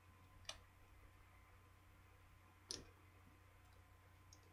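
Near silence broken by two short, sharp clicks, the second louder, from fingers and a small screwdriver handling the disassembled phone's main board and parts.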